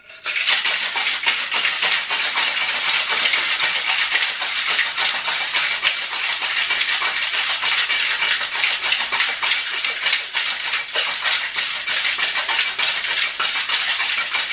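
Ice rattling inside a sealed copper Boston shaker, shaken hard and continuously: a dense, steady clatter of ice against metal that starts just after the beginning, as a cocktail is shaken with ice to chill it.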